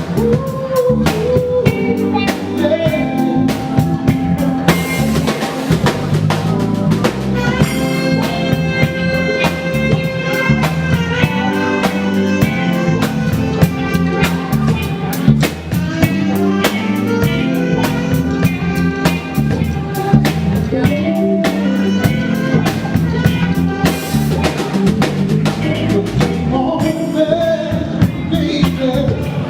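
Live band playing a blues-tinged groove: drum kit keeping a steady beat under keyboards and guitar.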